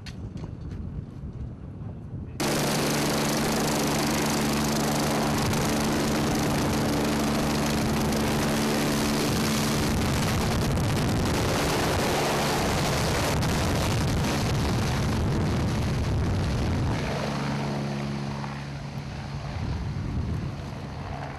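Eurocopter BK117 twin-turbine helicopter lifting off and climbing away: loud rotor and turbine noise with a steady hum, starting suddenly about two seconds in and easing off near the end.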